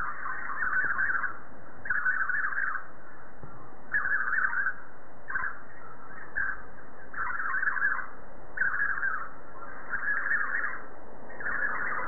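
Budgerigar chattering in short scratchy bursts, repeating roughly every second or so.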